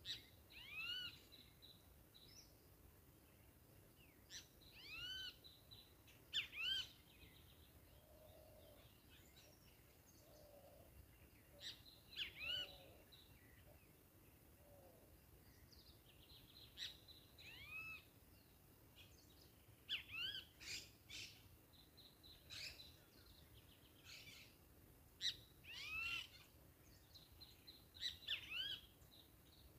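Wild birds calling: short arching chirps repeated every second or two, with a few lower, softer calls in between.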